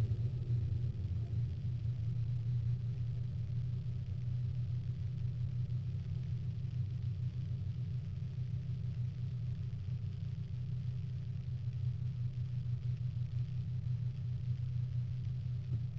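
Alpine A310 engine heard from inside the cabin, droning steadily at even, moderate revs with no revving up or down, along with a low road rumble.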